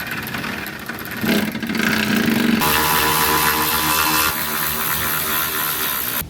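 A motor running loudly at a steady pitch for about six seconds, growing louder and brighter about a third of the way in, then cutting off suddenly.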